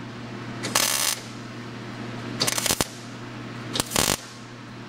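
Welder laying three short tack welds about a second and a half apart on thin automotive sheet metal, tacking a loose bracket on the Camaro's front end back in place.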